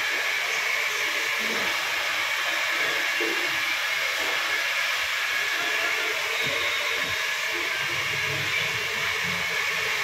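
Electric blower running steadily, a constant whooshing hiss.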